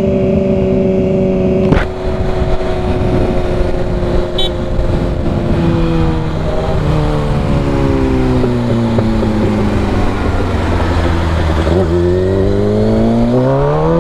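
Motorcycle engine running under way with wind rush. The engine note holds steady, falls as the bike slows through the middle, then rises steadily near the end as it accelerates again. A single sharp click comes about two seconds in.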